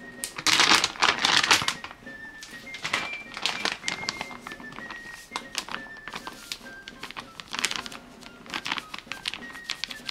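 Background music, a simple melody of held notes, over the crinkling and rustling of a flour bag being opened and tipped into a stainless steel bowl. The crinkling is loudest from about half a second to two seconds in, with lighter rustles and clicks after.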